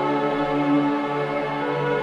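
Calm ambient relaxation music of sustained, held tones.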